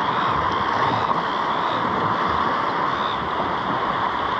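Wind buffeting the microphone with a steady wash of sea surf, a continuous rushing noise over an uneven low rumble.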